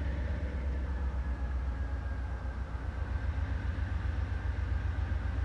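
Diesel locomotive engine idling, a steady low rumble.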